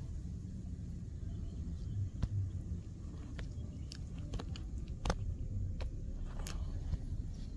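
Wind buffeting the microphone as a steady low rumble, with scattered sharp clicks and ticks every second or so.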